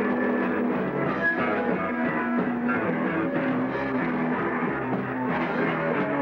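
Punk rock band playing live: guitar and drum kit in a continuous, loud rock passage.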